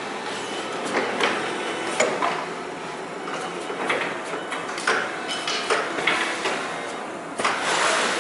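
Irregular knocks and clunks of equipment being handled during a teardown, roughly one a second, over a steady rushing noise.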